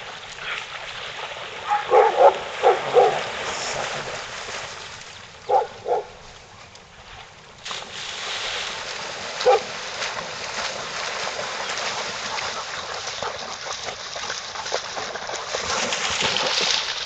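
A dog barking sharply: about four barks two seconds in, two more around five and a half seconds, and a single bark near nine and a half seconds. Under the barks, water sloshing and splashing goes on throughout and grows louder in the second half.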